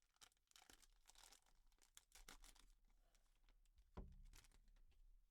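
Faint crinkling and tearing of a baseball card pack wrapper being pulled open, in many short crackles, with one thump about four seconds in.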